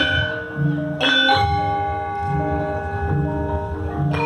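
Gamelan ensemble playing: struck bronze metallophone keys and gongs ringing on in long, overlapping tones, with fresh strokes about a second in and again near the end.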